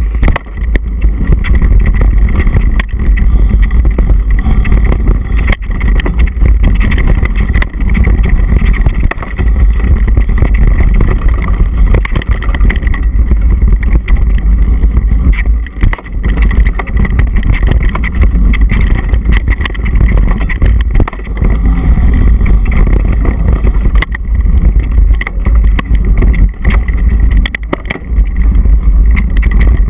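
Wind rushing over the camera's microphone as a mountain bike descends a dirt singletrack at speed: a loud, steady low rumble. Frequent knocks and rattles come from the bike and camera jolting over the trail, with a few brief dips as the speed eases.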